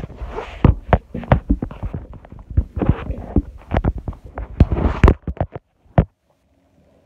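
Handling noise of a hand-held phone being moved and rubbed: irregular knocks and rustling close to its microphone, stopping abruptly about six seconds in.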